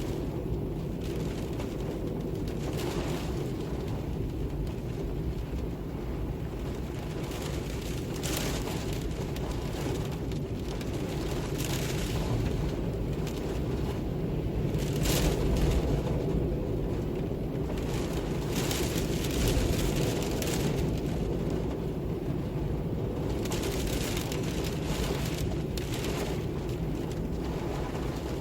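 Steady low wind rumble with gusts that swell and fade at irregular moments, the strongest about halfway through.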